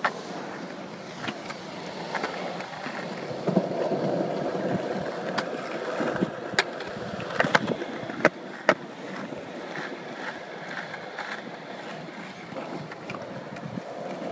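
Skateboard wheels rolling over concrete, a steady rumble that swells for a few seconds in the middle, with several sharp clicks around the middle.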